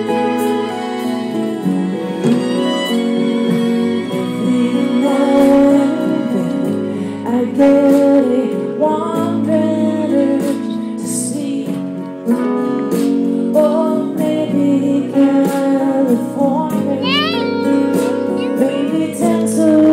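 Live performance of a slow Christmas song: a female lead vocal with acoustic guitar, violins and backing singers, with sustained string chords throughout.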